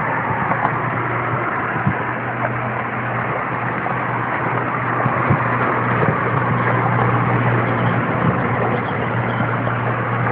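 Steady road-traffic noise with a continuous low engine hum.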